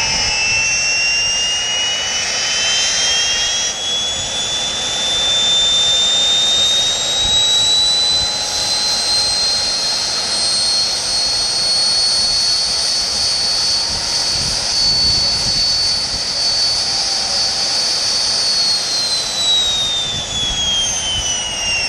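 Jet engine on a dune-buggy jet car running while the car stands still, a loud whine over a rushing exhaust hiss. The whine climbs in pitch over the first ten seconds or so, holds steady, then winds down over the last few seconds.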